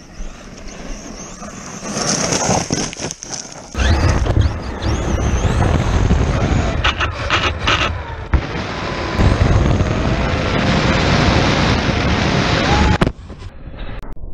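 8S brushless electric RC basher truck driven hard, its motor whine rising and falling with the throttle, mixed with heavy low rumble of wind on the microphone. It cuts off suddenly near the end.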